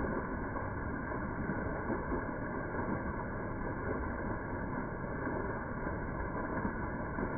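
Small creek waterfall splashing steadily over rocks into a shallow pool: an even, continuous rush of falling water.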